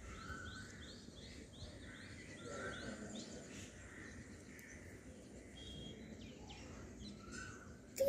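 Pet budgerigars chirping faintly: a quick even run of about nine short, identical high chirps, roughly two and a half a second, over the first three and a half seconds, then a few scattered chirps later.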